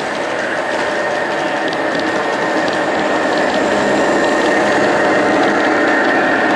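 G scale model diesel locomotive running past with a steady whir of motor and gears and light clicking of wheels over the track, growing louder as it draws near.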